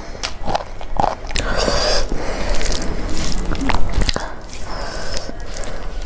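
Close-miked eating sounds: a person chewing with many wet mouth clicks and crisp crunches, while a hand tears lettuce and mixes rice on a banana leaf.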